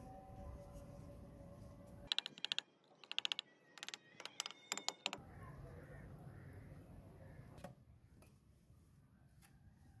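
Several quick bursts of light hammer taps on bricks set in fresh mortar, knocking them level against a wooden straightedge. The taps are sharp clicks with a faint ring, grouped in rapid runs between about two and five seconds in.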